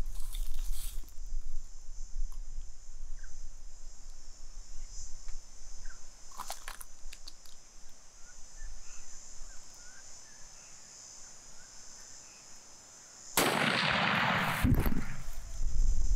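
A single sudden, loud rifle shot about thirteen seconds in, from a .300 WSM with a short barrel and a muzzle brake. A steady high insect drone runs behind it.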